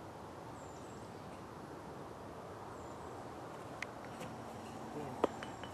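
Quiet open-field ambience with faint, short bird chirps now and then. Two sharp clicks sound near the end, the louder about five seconds in.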